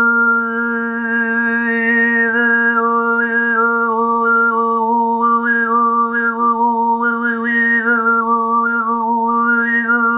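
Overtone singing: one voice holds a steady drone while a whistle-like melody of overtones steps up and down above it.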